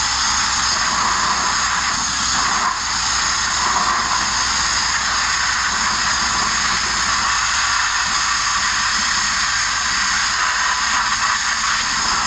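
Abrasive media-blasting nozzle firing grit against the bare sheet-metal front of a Mk1 Ford Transit van: a loud, steady hiss of air and media, dipping briefly about two and a half seconds in.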